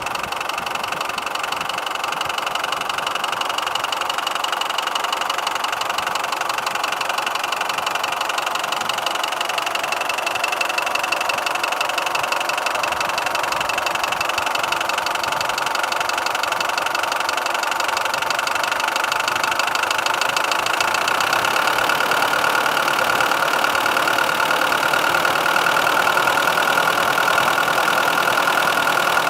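Mitsubishi 4D56 turbodiesel engine running with a distinct metallic single knock, heard loudest from the manifold side, over a steady whine. The knock was traced to shifted timing marks: a broken keyway on the crankshaft let the crank pulley slip by a small angle.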